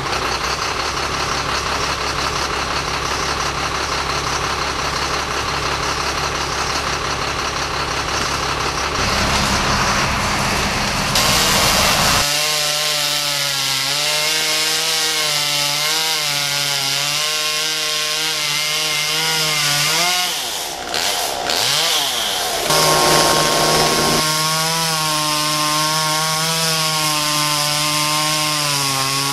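Chainsaw running at high revs and cutting wood, its pitch wavering under load, over a truck engine running steadily at the start. Around twenty seconds in the saw's revs drop and sweep back up, then it settles back into steady cutting.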